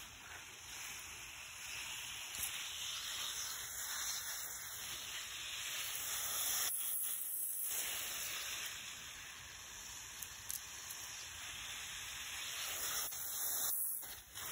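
Garden hose spray nozzle hissing steadily as it waters garden soil and onion plants, the hiss swelling and easing as the spray is moved along the rows.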